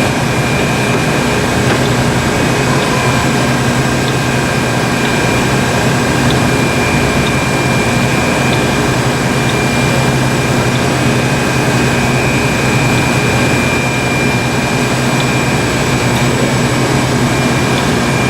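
Large heavy-duty engine lathe running under power from its 25 HP three-phase motor, a steady mechanical hum with constant high-pitched whines from the drive and gearing.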